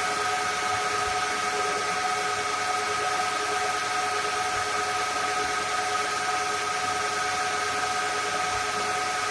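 IBM System x3650 M3 server's cooling fans running at high speed: a steady whine of several tones over a loud rush of air, the 'jet sound'.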